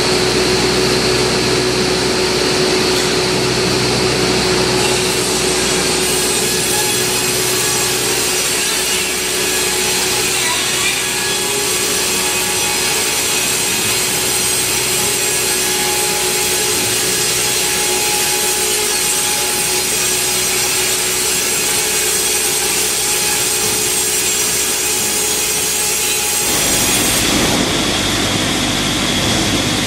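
Wravor 1200 Profi NB horizontal bandsaw sawing lengthwise through a log: steady, loud sawing with a constant hum under it. About 26 seconds in it cuts abruptly to a different steady machine noise with a higher whine.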